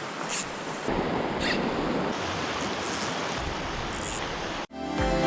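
Mountain stream water rushing, a steady noise that gets louder about a second in. It cuts off near the end, where music starts.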